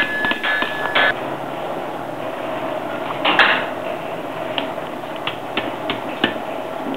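Hammer blows on hot metal at an anvil: a quick run of strikes with a ringing note in the first second, then a louder scrape about three seconds in and scattered single taps, the sharpest near the end, over a steady hum.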